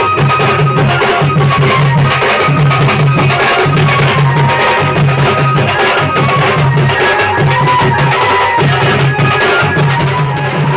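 Village wedding band playing folk music: strap-hung barrel drums beaten with sticks and hand cymbals keep a fast, steady rhythm, with a melody line of held high notes above it.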